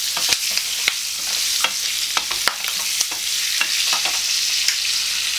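Whole green bullet chillies frying in oil in a stainless steel pan: a steady sizzle, with scattered clicks and scrapes as a wooden spatula stirs them against the pan.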